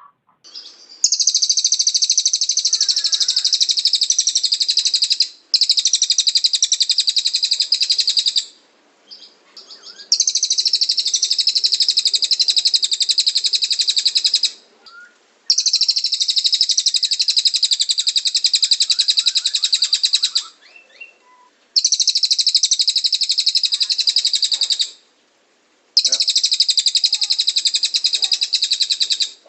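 Cililin bird singing in long, very rapid high-pitched trills ('tembakan'), each burst lasting three to five seconds, six bursts with short pauses between them.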